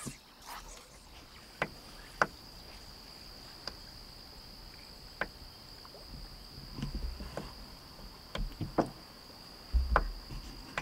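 Steady high-pitched insect trill, with scattered sharp knocks every second or two and a couple of low thumps near the end.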